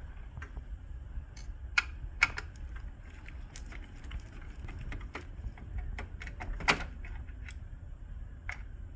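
Irregular plastic clicks and taps from handling and unclipping a laser printer's plastic covers with hand tools, with a few sharper snaps about two seconds in and again near seven seconds.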